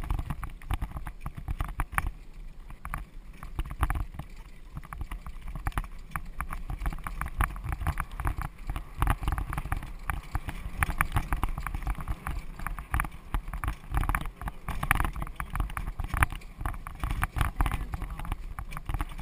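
Horse-drawn carriage rolling fast over a dirt track: a dense, irregular run of knocks and rattles from the wheels and frame over a low rumble, with the horse's hoofbeats in among them.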